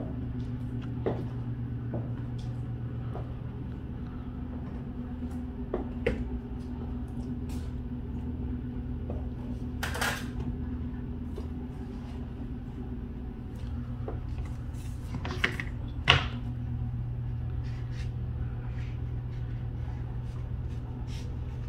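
Irregular light clicks and knocks from a shoe being handled and put on, over a steady low hum, with a short rustle about ten seconds in and a few louder knocks a little past the middle.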